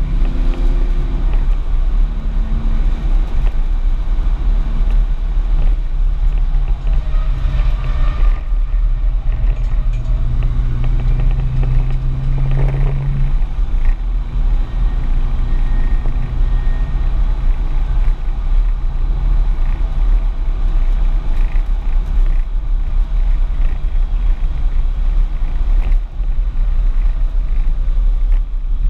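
Audi S4's engine running hard on a track lap, heard from inside the cabin under a constant heavy low rumble of road and wind noise. The engine note holds steady, then drops away a little under halfway through.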